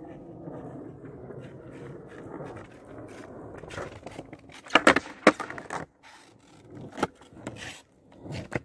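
Skateboard wheels rolling over rough concrete with a steady rumble, then several sharp clacks of the board hitting the ground about five seconds in, with another around seven seconds and one near the end.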